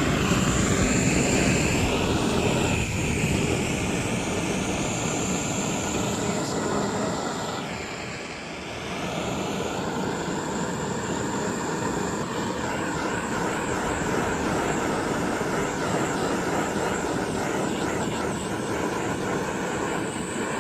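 Electric power sander running steadily on the cut-out wooden pieces, a dense whirring with a high whine. About eight seconds in it eases and dips briefly, then picks up again.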